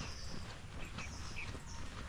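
Runners' footsteps on a dirt trail, heard through an action camera's microphone with a steady rumble of wind and movement, and a few short high bird chirps.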